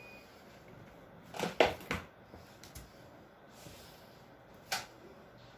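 A quick cluster of sharp clicks and knocks about one and a half seconds in, a few light ticks after it, and a single click near the end: small objects being handled on a workbench.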